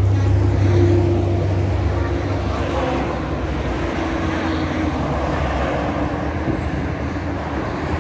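Steady road traffic on a busy multi-lane road: engines and tyres of passing cars and trucks, with a low rumble that is strongest in the first second and then eases.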